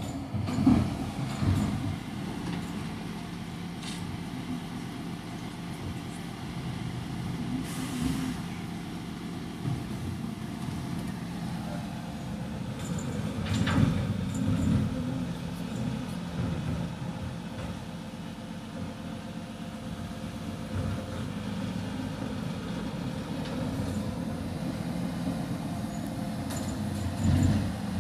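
Recycling lorry's diesel engine running steadily, with louder swells about a second in, around fourteen seconds in and near the end. A short hiss comes about eight seconds in.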